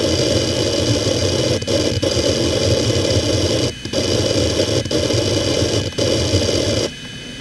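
Toshiba MK1401GRRB 15,000 rpm 2.5-inch SAS hard drive seeking rapidly during a random seek test: a dense, continuous chatter of head seeks over the steady whine of the spinning platters. The chatter breaks off briefly four times and stops about seven seconds in, leaving only the spindle whine.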